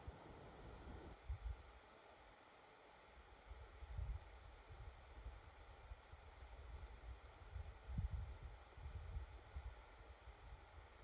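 Faint night ambience: a steady, high-pitched rapid pulsing hiss, with a few soft low thumps about a second, four and eight seconds in.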